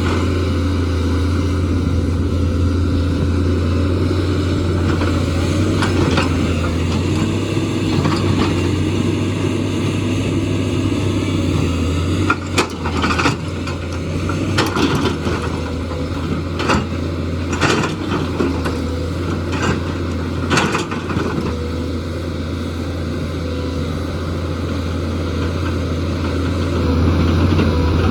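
JCB excavator's diesel engine running steadily under work, with a series of sharp knocks in the middle stretch.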